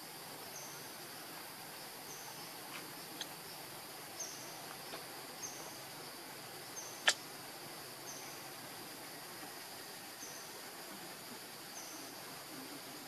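Outdoor forest ambience: a steady high insect drone with a short high chirp repeating about once a second. There are a few faint clicks and one sharp click about seven seconds in.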